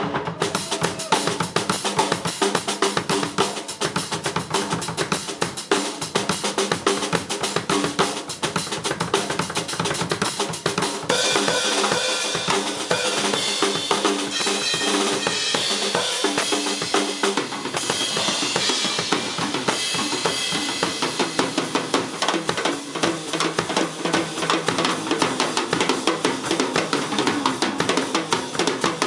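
Live drum-kit solo: a fast, dense stream of strokes on snare, toms and bass drum, with rimshots. In the middle the sound turns brighter and hissier for about nine seconds, then drops back to the drums alone.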